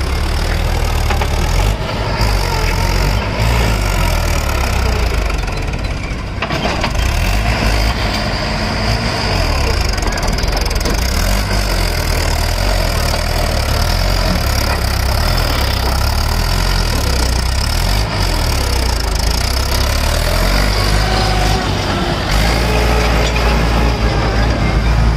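Mahindra tractor's diesel engine running steadily, working a tow chain to pull a loaded trailer stuck in mud.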